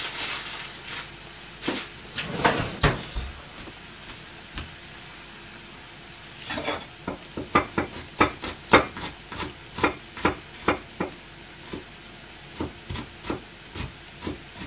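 A knife cutting fresh ginger on a cutting board: a few knocks early on, then a run of quick, uneven knocks, about three a second, for several seconds in the middle, then a few scattered ones near the end. A faint steady hiss of the simmering pan runs underneath.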